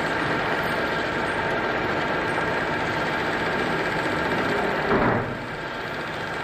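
Metal lathe running and turning a steel sprocket blank, a steady machine noise with cutting sound. A brief louder burst comes about five seconds in, and the machine runs a little quieter after it.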